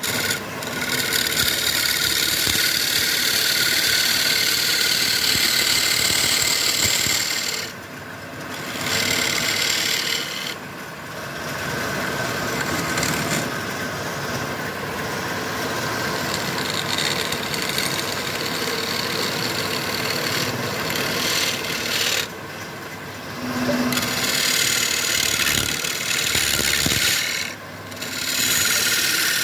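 Flat steel scraper cutting the inside of a wooden tray spinning on a lathe, a steady dense scraping of wood. The scraping breaks off briefly several times.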